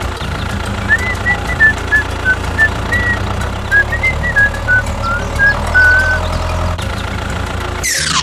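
Vehicle engine running steadily. Over it, from about a second in until about six seconds, comes a string of short high-pitched beeps that step up and down in pitch.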